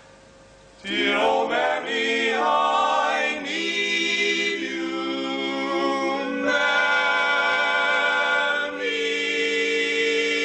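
Male barbershop quartet singing a cappella in close four-part harmony, coming in about a second in with held chords that change every second or two, the last chord held for a couple of seconds.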